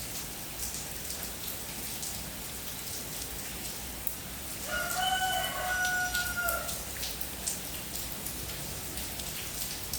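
Steady rain falling with scattered drop ticks, and a rooster crowing once, a single cock-a-doodle-doo of about two seconds, near the middle.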